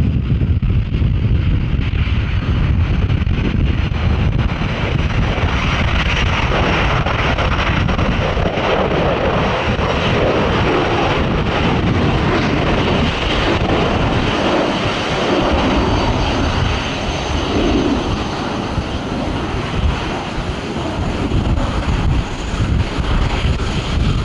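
Jet airliner engines running, a thin high whine coming in about five seconds in over a broad roar, heard through heavy gale wind buffeting the microphone.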